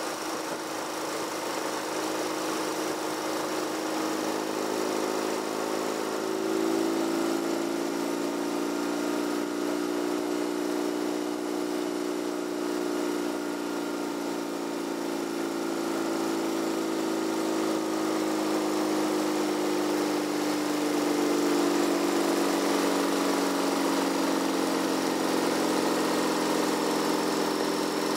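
Vehicle engine running while driving at road speed, its pitch rising and falling slowly twice as the revs change.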